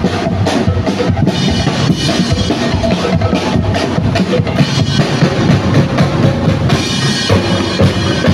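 Music with a steady drum beat of bass drum and snare.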